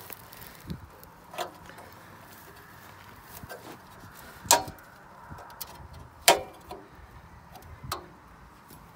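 Knockouts in a sheet-steel meter base enclosure being bent and snapped out by hand and with a small tool: a few sharp, ringing metallic clicks, the loudest two about halfway through.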